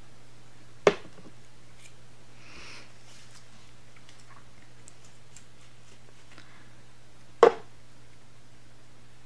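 Two sharp knocks, about a second in and again near the end, over a steady low hum with faint small clicks and rustles between.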